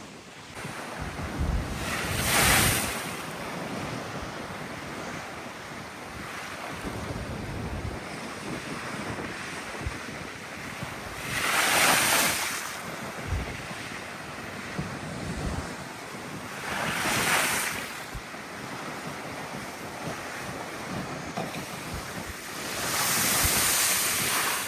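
Big sea waves crashing, with four louder surges of surf about two, twelve, seventeen and twenty-three seconds in, over steady surf. Strong gusting wind buffets the microphone throughout.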